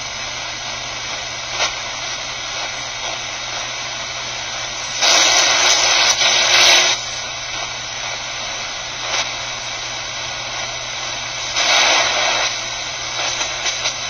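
Steady shortwave static hissing from a QFX R-14 portable radio's speaker as it is tuned across the 31-meter band, with no station coming through. The hiss surges louder twice, about five seconds in and again near twelve seconds.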